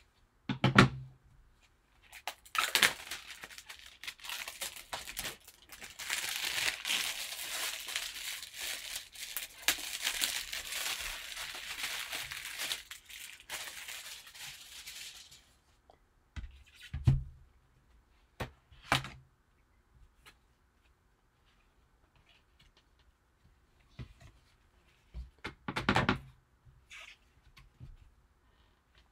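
A sealed trading-card box's packaging torn open and crinkled by hand for about twelve seconds, followed by a few light thuds as the box and card are handled and set down.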